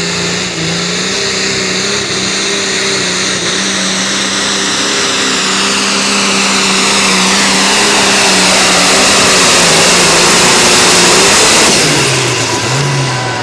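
Pulling tractor engine held at full throttle under load during a sled pull, at a steady pitch and growing louder. About 12 seconds in, the engine backs off and its pitch falls as the pull ends.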